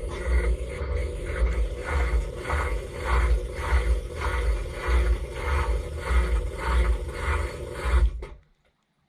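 Dishwasher running: a deep pump hum under water spray that pulses in an even rhythm of about three swishes a second, as the rotating spray arm sweeps past. About eight seconds in it all cuts off suddenly as the pump stops.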